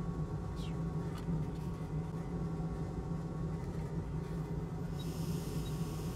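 Steady low machine hum with a fan-like rushing noise, with a brief falling chirp about half a second in and a faint click about a second in; a high hiss joins at about five seconds.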